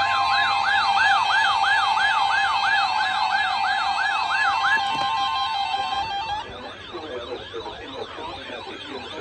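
Electronic siren yelping in fast rising-and-falling sweeps, about three a second, over steady alert tones. About six seconds in the steady tones stop, and the siren goes on fainter and more jumbled.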